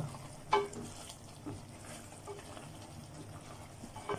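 Faint wet stirring of thick chicken curry gravy with a wooden spatula in a steel pot, with a brief louder sound about half a second in.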